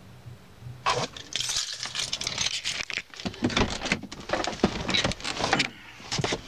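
Rustling and irregular jingling clicks of handling in the driver's seat, like keys jangling near the ignition, starting about a second in and running on densely.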